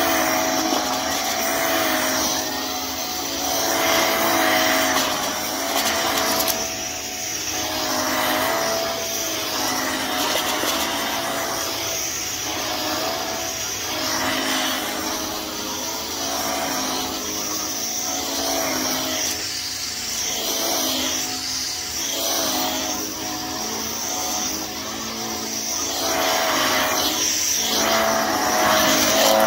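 Upright bagless vacuum cleaner running on carpet, its motor whining steadily while the sound swells and fades with each push and pull, every second or two.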